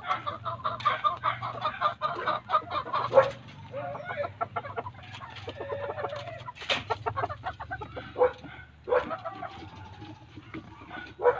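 Chickens clucking repeatedly in short, closely spaced calls, broken by a few sharp clicks, the loudest about three and seven seconds in.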